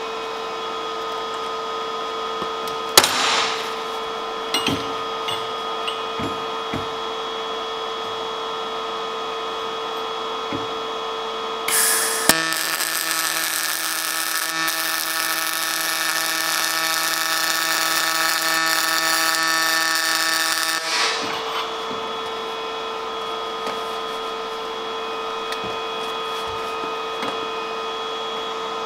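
Pulse MIG welding arc buzzing for about eight and a half seconds, starting about twelve seconds in: a steady, pitched buzz from the pulsing arc. Before and after the weld, a steady background hum with a few sharp clicks and taps.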